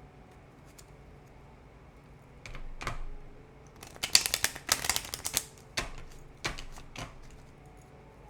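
A tarot deck being handled and shuffled: a couple of sharp card clicks, a quick rapid flurry of card snaps about four seconds in, then a few more single clicks.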